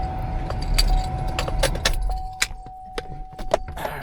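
Keys jangling and clicking inside a car over a steady, high electronic warning tone. The car's low running rumble drops away about two seconds in.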